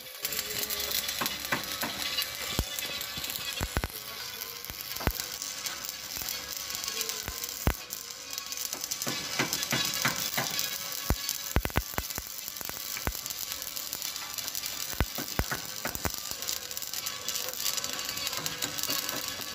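Stick arc welding on a tractor plow's steel frame: the arc gives a steady hiss with many sharp, irregular crackles and pops.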